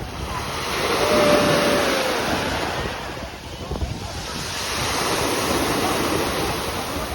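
Sea waves washing on the shore, swelling and easing back, with wind buffeting the microphone.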